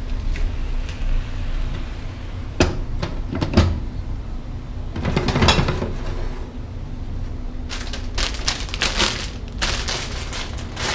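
Scattered knocks and clatter of cookware at a gas stove, then a dense run of crinkling plastic bags near the end, over a low steady rumble.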